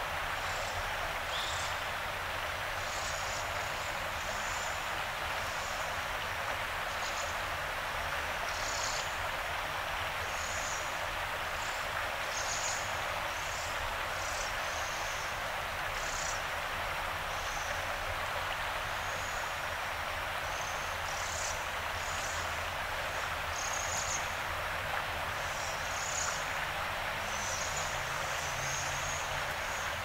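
Steady rush of flowing river water, with short high-pitched chirps scattered throughout.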